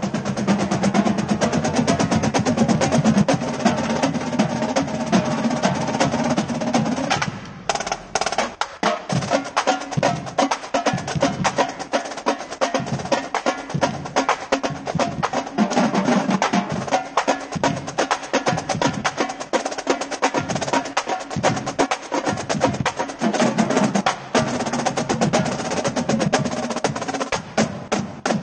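A marching drumline of tenor drums (quints) and snare drums playing a fast cadence. A dense, sustained roll for the first several seconds gives way about seven seconds in to sharper, separated rhythmic strokes.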